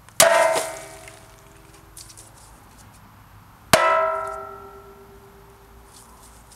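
A fabricated sheet-steel Stormbreaker replica axe striking a tree stump twice, about three and a half seconds apart. Each blow is a sharp clang followed by a metallic ringing of several tones, and the second ring lasts longer, over a second.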